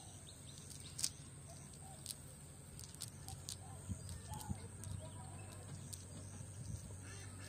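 Quiet rural pond-side ambience: faint bird chirps over a steady low hum, with a few light clicks and rustles as a cast net is handled on the grass, the sharpest about a second in. Near the end, ducks start quacking.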